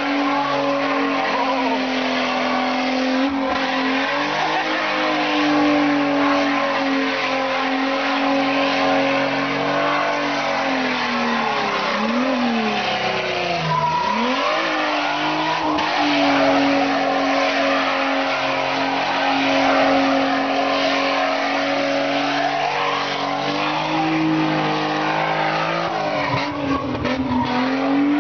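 A Datsun doing donuts: its engine is held at high revs while the rear tyres spin and squeal on the loose surface. The revs drop and climb back twice, about twelve seconds in, and dip again near the end.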